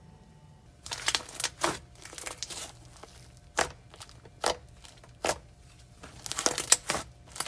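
Thick slime being pressed, poked and stretched by hand, giving irregular runs of crackles and little popping clicks from about a second in.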